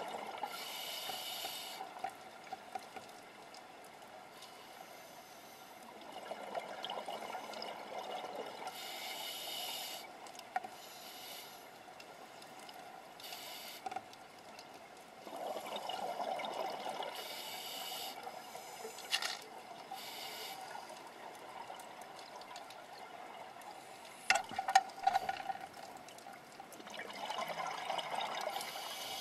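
A scuba diver's own breathing heard through an underwater camera: a hiss from the regulator on each inhale and the bubbling of exhaled air, slow breaths several seconds apart. A short cluster of sharp clicks comes about three-quarters of the way through.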